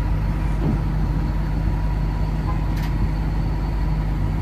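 Heavy engine idling with a steady low hum and a faint high whine, and a short sharp click a little under three seconds in.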